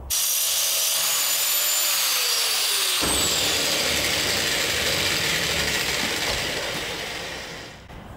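Handheld electric power tool running under load on a leaf-spring eye bushing: its motor note holds, then sags lower a couple of seconds in, and the noise runs on and fades out near the end.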